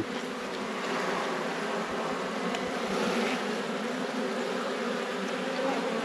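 A colony of honeybees buzzing from an opened hive, a steady hum with no breaks.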